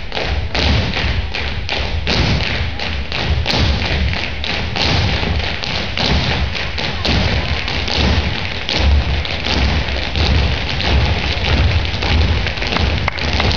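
Tap shoes of a group of dancers striking a stage floor together, a dense run of sharp, rhythmic taps and stamps.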